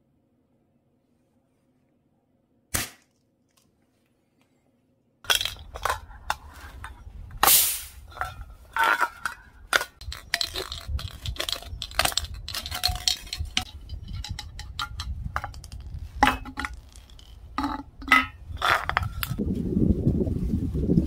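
Near silence with one sharp click, then an aerosol spray can being cut open with pliers: a quick run of metal clicks, crunches and scrapes. Wind rushes on the microphone near the end.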